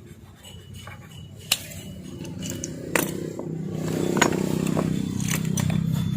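Small metal sewing-machine parts clicking as they are handled and fitted, three sharp clicks in all. Behind them a low drone builds from about two seconds in.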